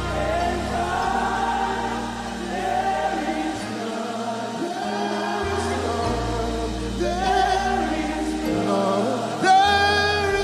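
Gospel worship music: a choir and congregation singing slowly over sustained keyboard and bass chords. A strong held note with vibrato stands out near the end.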